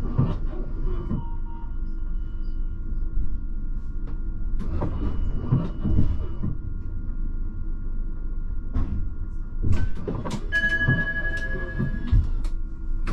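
Alstom RegioCitadis light-rail tram running on its track: a steady low rumble of wheels on rails under a steady electric-drive whine, with irregular clattering knocks over joints or points. Near the end, several higher steady tones sound together for about a second and a half.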